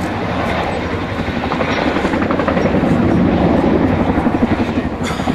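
RAF Boeing Chinook tandem-rotor helicopter flying low overhead: the rapid beat of its twin rotors' blades over the turbine engines, growing louder a few seconds in as it banks above.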